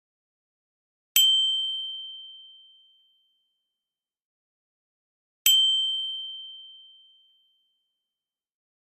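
A bright bell-like ding sound effect, struck twice about four seconds apart; each ding rings out and fades over about two seconds.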